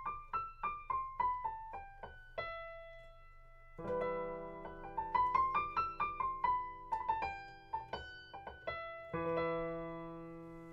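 Piano playing: a quick run of single notes that climbs and comes back down, a held note, then a sustained chord with a melody played over it, and a new chord struck and held near the end.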